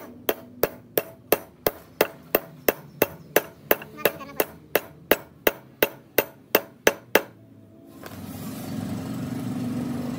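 Rapid, even hammer blows on the ram of a 32-ton hydraulic bottle jack, about three a second, stopping about seven seconds in; a steady low hum follows.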